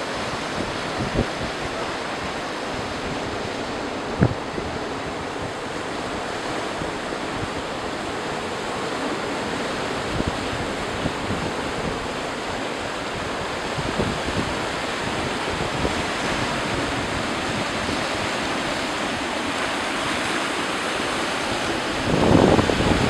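Mediterranean surf breaking and washing over low rocks in a steady rush, with wind blowing across the microphone. Near the end the wind on the microphone gets louder and gustier.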